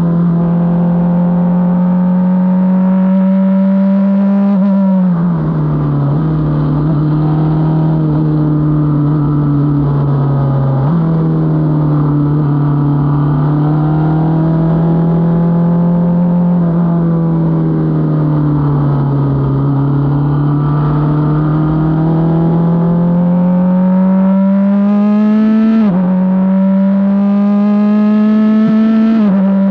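Onboard sound of an F4 race car's engine at speed, its pitch rising and falling through the corners of a lap. Sudden shifts in pitch mark gear changes, with two upshifts close together near the end, over steady wind and road noise.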